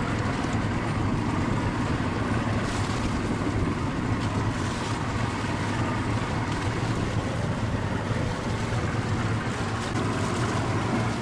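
Steady engine drone from a SHERP amphibious ATV as its big tyres churn through broken lake ice and water.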